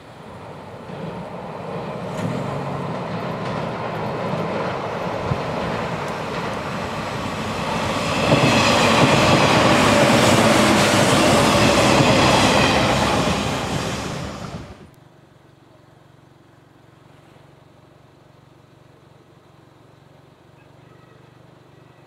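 A 485-series electric train passing close by, with the running noise of its wheels on the rails. The sound grows louder over about eight seconds, is loudest as the train goes past, then cuts off suddenly about fifteen seconds in.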